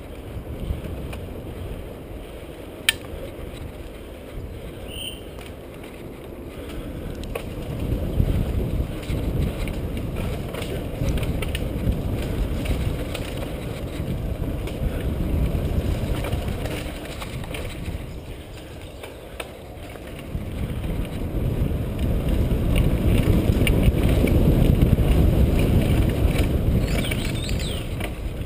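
Mountain bike ridden over a dirt and grass cross-country track, heard from the bike itself: tyre rumble and drivetrain and frame rattle, with scattered clicks and one sharp click about three seconds in. The rumble swells and fades with speed and terrain, loudest in two long stretches.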